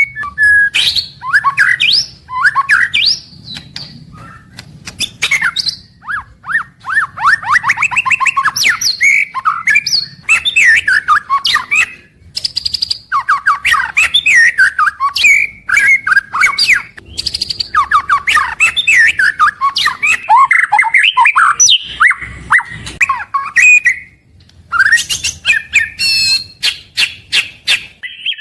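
White-rumped shama (murai batu) singing a loud, varied song of rapid trills, sweeping whistled notes and sharp clicks, broken by a few brief pauses.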